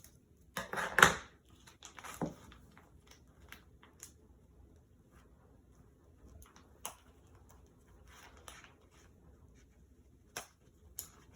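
Plastic toy packaging being handled and squeezed: a loud crinkling crunch about a second in, then scattered light clicks and rustles.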